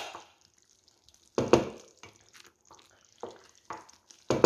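A spoon stirring thick tomato and onion gravy in a steel pot: four short wet squelches and plops. The loudest come about a second and a half in and near the end.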